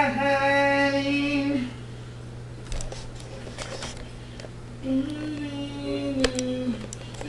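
A man's voice singing long held notes in a bathroom, two phrases with a pause of about three seconds between them.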